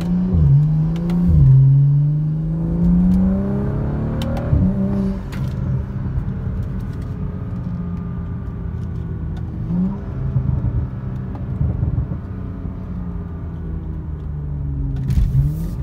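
BMW 335i's turbocharged N55 inline-six with a catless downpipe and muffler delete, heard inside the cabin, accelerating hard with the pitch climbing through two quick upshifts, then a sharp drop as the throttle lifts about four seconds in, followed by a few short cracks. It then runs on at a steadier, lower note with brief blips of throttle.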